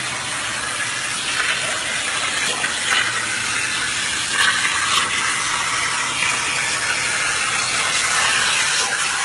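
CNC machine running with a steady hiss and a few faint clicks.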